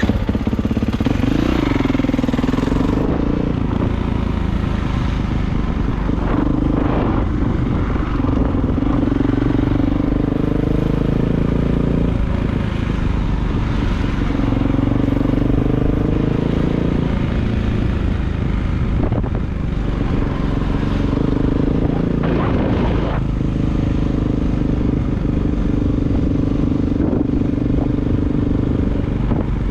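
Kawasaki KX450 dirt bike's single-cylinder four-stroke engine running under throttle while riding, its note holding, climbing and dropping every few seconds with throttle and gear changes.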